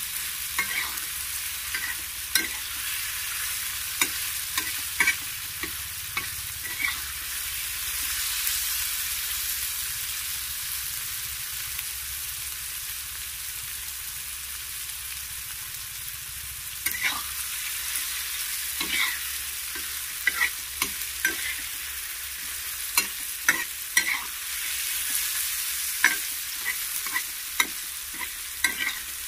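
Chopped tomatoes, onion and curry leaves sizzling steadily in hot oil in a frying pan, the tempering for an aubergine bharit being fried. A steel spatula scrapes and knocks against the pan in the first several seconds and again through the second half, with only the sizzle in between.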